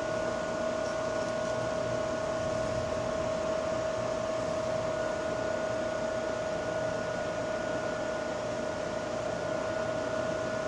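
A steady machine hum with a hiss and two constant pitched tones, unchanging throughout.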